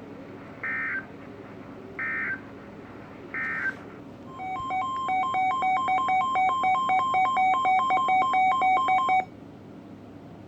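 Emergency Alert System tones: three short buzzy data bursts about 1.3 s apart, the SAME header that opens an alert, then a loud two-tone alert signal pulsing about four times a second for some five seconds, cutting off suddenly.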